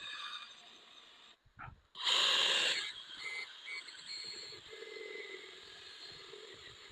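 Car headlight lens being polished with rubbing compound: an uneven scrubbing hiss, loudest in a burst about two seconds in, then steadier and quieter.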